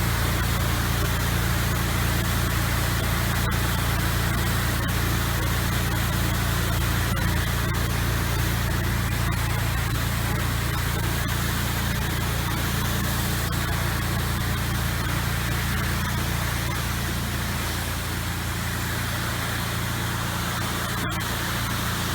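Pressure washer engine running steadily with the constant hiss of a high-volume, low-pressure rinse stream spraying water onto house siding. It eases off a little near the end.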